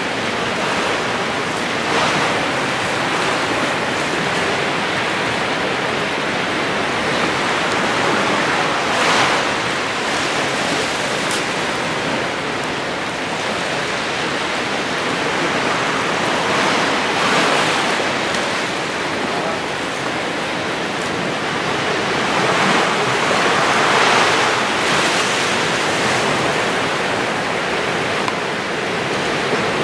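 Small waves washing onto a sandy beach, a steady rushing that swells and eases every several seconds.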